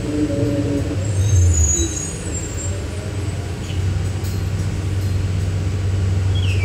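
Cabin running noise of an electric trolleybus: a steady low hum with road noise, growing a little stronger about two-thirds of the way through.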